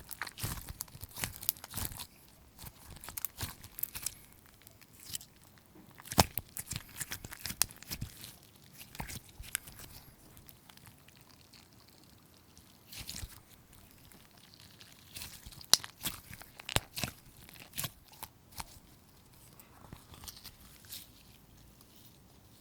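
Slime being squeezed and kneaded by hand, giving irregular sharp pops and crackles as air pockets burst. The pops are thickest in the first several seconds, thin out for a few seconds in the middle, and pick up again later.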